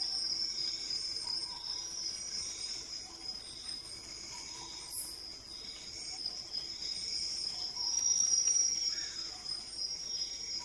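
Night chorus of crickets and other insects: a steady high-pitched trill, with a softer pulsing call repeating about once a second beneath it and a brief tick about halfway.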